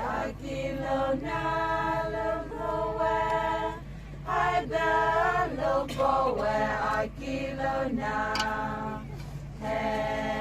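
Voices singing together in a chant-like song, in phrases of long held notes with short breaks between them.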